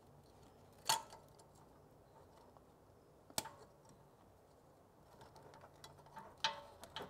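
Four short, sharp clicks of pliers working a plastic retaining clip on a car's rear ride-height sensor mount: one about a second in, one near the middle, and two close together near the end.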